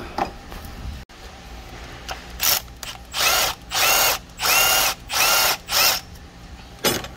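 Handheld power drill run in about five short bursts of roughly half a second each, its motor whine rising in pitch at the start of each burst. A single sharp knock comes near the end.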